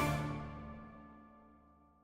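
Music: a full, loud chord of a short music cue ringing out and fading away.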